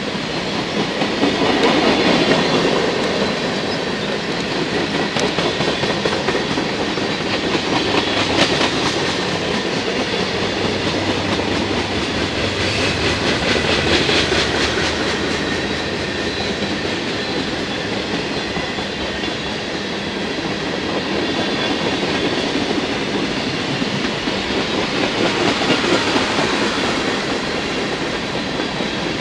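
Freight train cars rolling past on steel wheels: a steady rumble and clatter of rail traffic, swelling and easing now and then as the cars go by.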